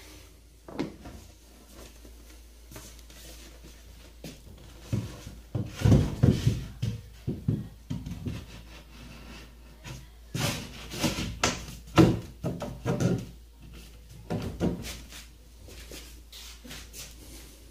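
Wardrobe shelf board knocking and scraping against the wardrobe frame as it is fitted onto its shelf supports: irregular clusters of knocks, the loudest about twelve seconds in.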